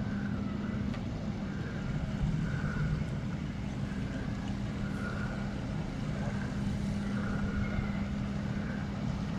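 Steady low hum of a motorboat engine running out on the water, with a constant drone and faint higher sounds over it.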